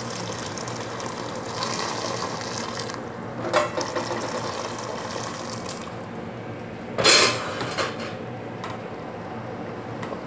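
Hot water pouring in a thin stream into a steel cooking pot of tomato-and-spice sauce for about three seconds. A sharp knock follows, and about seven seconds in a loud, brief clatter of metal cookware with a few lighter clicks after it.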